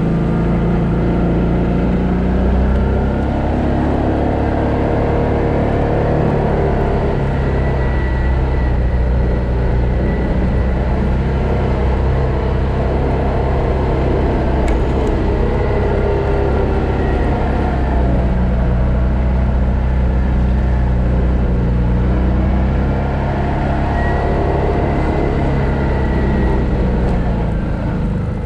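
Arctic Cat TRV 1000 XT quad's V-twin engine running steadily at low speed on a dirt trail, its pitch easing up and down a little with the throttle.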